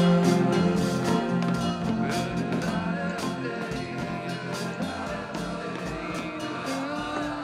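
Background music with a steady beat, slowly getting quieter.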